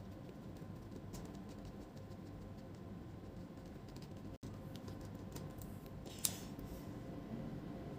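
Precision screwdriver turning a small screw into a laptop's hinge mount: faint, scattered small clicks and scrapes, with one sharper click about six seconds in.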